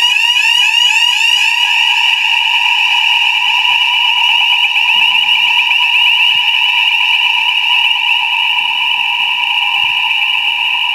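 Electronic fire alarm sounding loud and shrill, its tone repeating in quick upward sweeps about four times a second; about two seconds in the sweeps blur into a faster, steadier warble.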